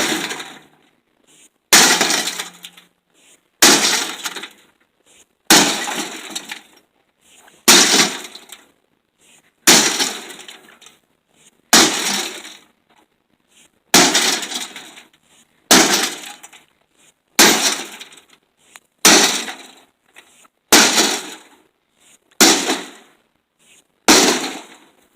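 Sledgehammer blows smashing a microwave: a sharp crash about every two seconds, a dozen or more in a row, each with breaking glass and clattering that dies away.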